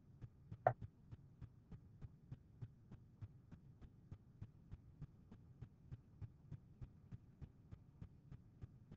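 A single computer mouse click about a second in, over a faint hum with a steady ticking about three times a second.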